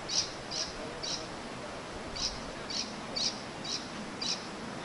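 A bird chirping over and over: short high chirps about twice a second, with one brief pause.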